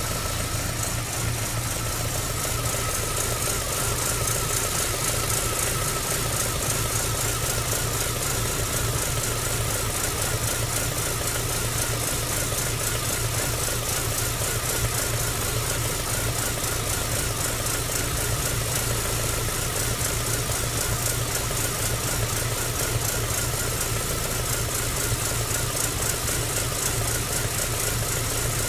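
MG ZR 105's K-series four-cylinder petrol engine running steadily at idle, with a wavering whine over the engine note and a fast, even ticking. This is the intermittent weird sound the owner hears, still there after new spark plugs, leads and alternator belt.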